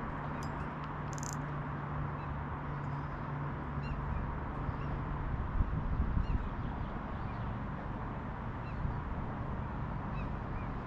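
Faint short bird chirps repeating every second or so over a steady background hiss, with a few low knocks about halfway through.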